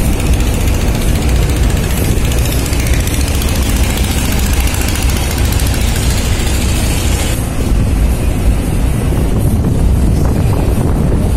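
Car ferry KMP Poncan Moale under way: a steady, loud low rumble of the ship's engines on the open vehicle deck, with a rushing hiss over it that eases about seven seconds in.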